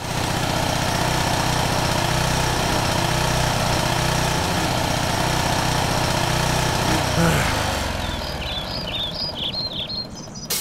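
Push lawn mower engine running steadily, heard through a sound system from a video on a show screen. About seven seconds in, its pitch shifts and it fades away, and a few high chirps follow near the end.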